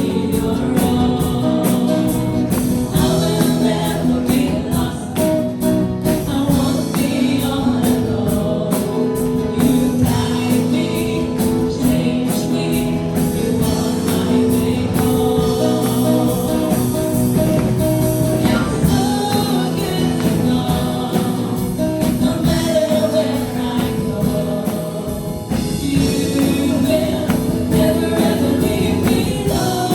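A worship team singing a gospel praise song together, with instrumental accompaniment.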